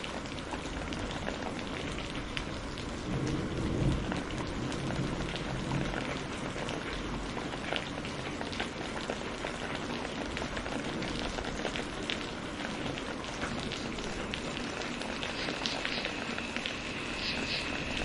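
Steady tropical rain falling on rainforest foliage, with a low roll of thunder about four seconds in. From about fifteen seconds in, an animal starts calling: a steady high note with short chirps repeated over it.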